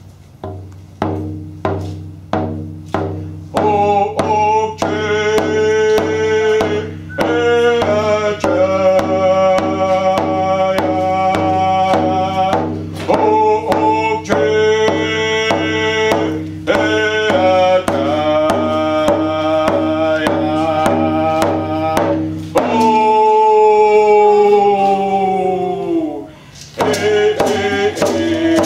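Squamish Nation welcome song: frame hand drums struck in a steady beat, joined a few seconds in by several voices singing together. Near the end the voices hold a long note that falls away, then after a short break the drumming and singing start again.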